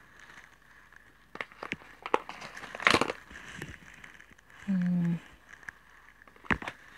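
Handling noise from a phone's white USB charging cable being untangled: rustles and sharp clicks in a cluster from about one and a half to three and a half seconds in, loudest near three seconds, and one more click near the end. A short hum of a person's voice around five seconds in.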